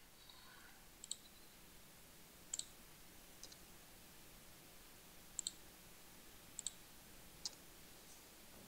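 Faint computer mouse clicks, about six spread over several seconds, two of them quick double clicks, over quiet room tone.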